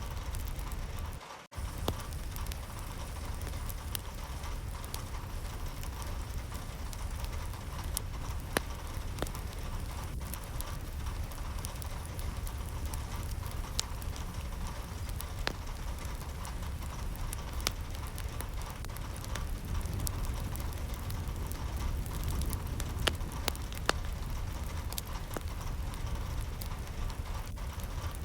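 Steady rain falling, with scattered sharp drips and taps of individual drops over a low rumbling hiss. The sound cuts out for a moment about a second in.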